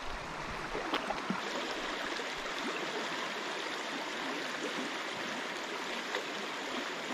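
River water flowing over shallows: a steady rushing of running water, with a faint tick about a second in.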